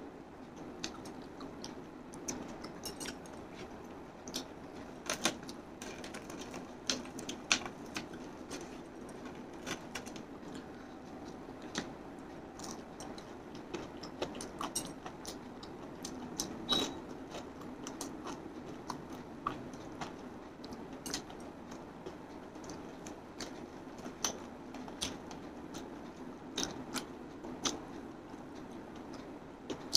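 Someone biting and chewing KFC Hot & Crispy fried chicken: irregular sharp crunches and crackles of the crispy coating, over a low steady hum.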